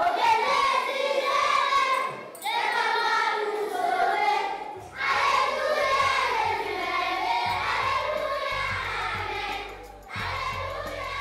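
Background music: a choir singing, with a low accompaniment joining about five seconds in.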